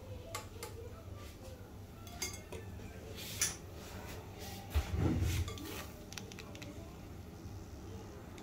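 Wire-mesh frying skimmer clinking and knocking against a glass bowl as fried peanuts and curry leaves are tipped out of it. A scatter of light clinks, with the loudest knocks about five seconds in.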